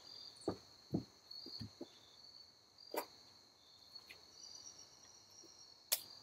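Insects chirping in a steady high buzz, with a few soft footsteps near the start and two sharp clicks, one about halfway and one near the end.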